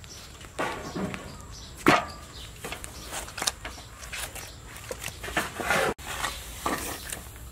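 Hands packing noodle dough into a metal noodle press: a run of irregular knocks, clicks and soft thuds, the loudest about two seconds in.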